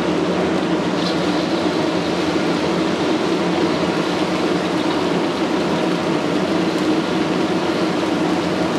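Steady roar of a commercial gas wok burner firing under a wok of boiling broth.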